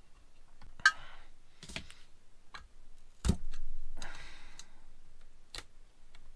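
Scattered clicks and knocks of a steel screwdriver and hands against the metal body of an Autolite 4100 carburetor on a cardboard-covered bench, as the secondary venturi screw is worked loose; a sharp click just under a second in is the loudest, and a heavier knock comes a little past three seconds in.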